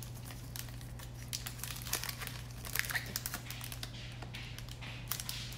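Foil wrapper of a football trading card pack crinkling in irregular crackles as gloved hands open it and handle the cards.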